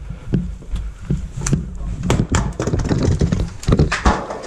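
Boots stepping on a hard floor with gear knocking and rattling: a run of irregular sharp knocks and taps, several a second.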